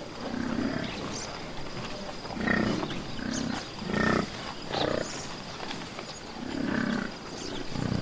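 American bison grunting: about six short, low grunts at irregular intervals.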